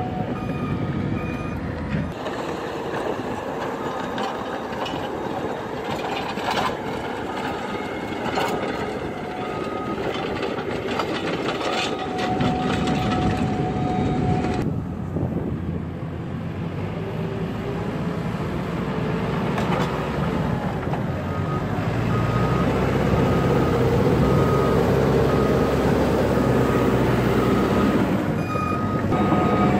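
Cat 432F backhoe loader running on its four-cylinder diesel engine as it works the ground, with its reversing alarm giving repeated beeps at times and a few knocks early on. The engine grows louder in the last third as the machine comes close.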